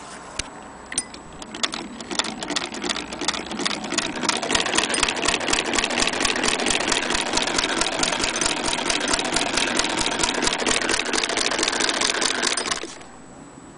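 1890 Singer 12K hand-crank sewing machine stitching through felt. Scattered clicks of the needle mechanism build into a rapid, even clicking as the crank turns faster, hold steady, then stop suddenly near the end.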